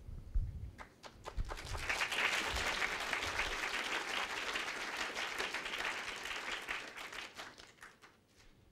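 Audience applauding: a dense patter of many hands clapping that swells about a second and a half in, then thins out and dies away near the end.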